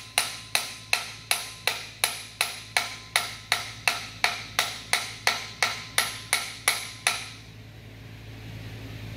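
Hammer driving an oil-impregnated bronze pilot bushing into the back of the crankshaft: steady metallic blows, nearly three a second, each ringing briefly, stopping about seven seconds in.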